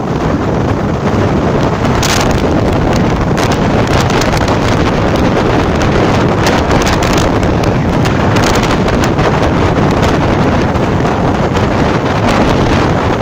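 Strong wind buffeting the microphone of a phone carried on a moving motorcycle, over the bike's running and road noise, with short crackles here and there.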